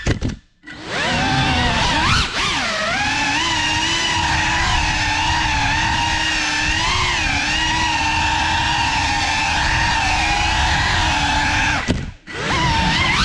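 Ducted 3.5-inch props and brushless motors of a GEPRC Cinelog35 cinewhoop drone, whining with pitch that wavers up and down as the throttle changes. The motors cut almost to silence about half a second in, spin back up with a rising whine, and dip briefly again near the end.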